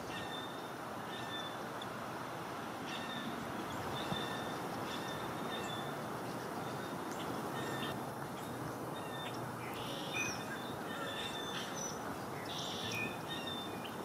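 Grackles and blackbirds squawking incessantly in short, repeated high calls over a steady background hiss.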